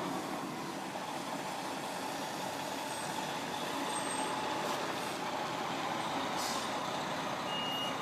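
A fire engine's engine running steadily, an even noise with no clear beats or changes.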